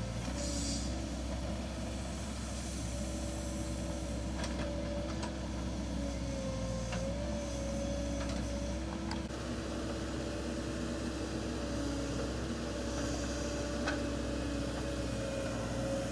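Excavator running steadily while digging a foundation: a constant engine rumble with a held, slightly wavering tone over it, and a few sharp knocks scattered through.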